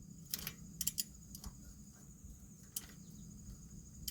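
A few light metallic clicks and clinks of a socket wrench on a bolt that is turning without tightening, which the mechanic takes for a broken or stripped bolt.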